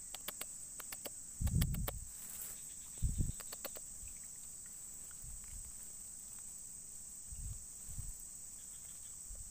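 Insects chirring steadily on one high pitch in a swampy field. Over it come a few dull thumps with quick runs of sharp clicks, about one and a half and three seconds in, and two softer thumps near the end, from hands working at a muddy eel hole.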